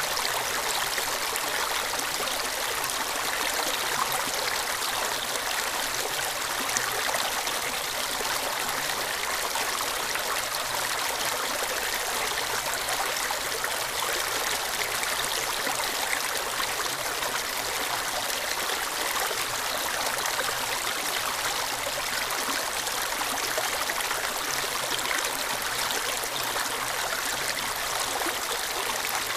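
Shallow stream running over and between rocks, a steady rush and trickle of water.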